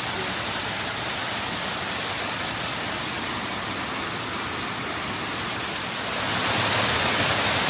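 Waterfall rushing steadily, getting louder about six seconds in.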